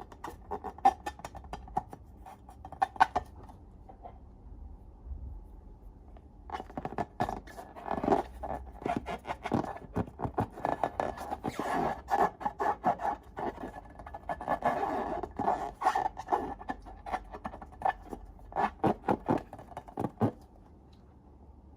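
Hands-on slime-making sounds: dense runs of short sticky crackles and scrapes. They pause for about three seconds near the start and stop a second or so before the end.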